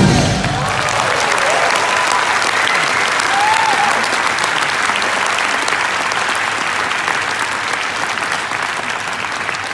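Audience applauding in a large hall, with a few cheers rising above the clapping. The clapping slowly fades. The last of the act's music stops right at the start.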